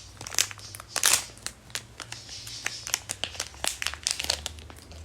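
Small plastic wrapper crinkling and crackling in irregular bursts as it is handled and opened, loudest about a second in.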